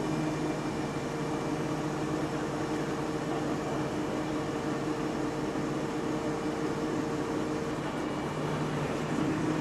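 Heavy diesel engine of the recovery wrecker running steadily, powering the boom for the lift, with a steady hum. One of its tones drops out about eight seconds in and another comes in just before the end.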